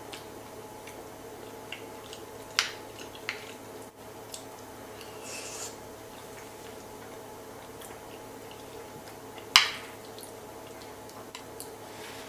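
Quiet close-miked eating sounds: a few sharp clicks and smacks, the loudest about nine and a half seconds in, over a faint steady hum.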